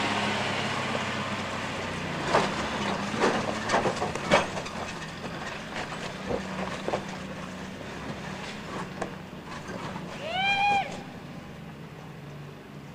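A 1980s Toyota 4x4 pickup's engine running steadily as it crawls up a rock slab, growing fainter as it pulls away. A few sharp knocks and clicks come between two and five seconds in as the tyres work over the rock. There is a short high squeal about ten and a half seconds in.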